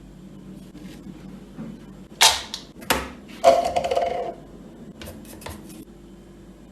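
Kitchen utensils and dishware knocking and clattering: three sharp knocks, the last ringing briefly, then a few light clicks, over a steady low hum.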